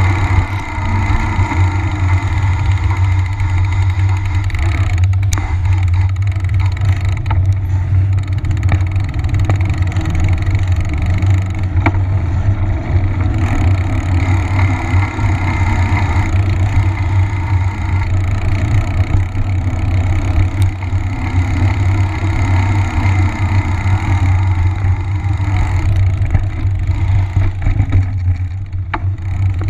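Steady low rumble of wind on the microphone mixed with the hum of a knobby mountain-bike tyre rolling on asphalt while riding.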